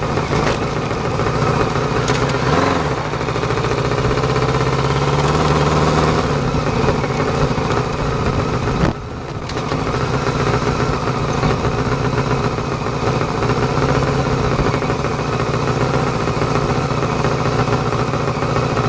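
Honda CBR600F2's inline-four engine running at low revs as the bike rolls slowly, with a brief rise and fall in revs a couple of seconds in. The sound drops away for a moment about nine seconds in, then the steady engine note comes back.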